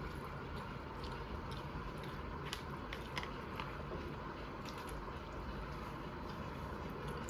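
A pet chewing food, with irregular small crunches and clicks over a steady background hum.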